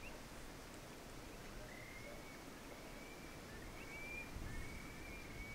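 A bird's faint, thin, high whistling call, drawn out and wavering slightly, starting about a second and a half in over a quiet riverside background.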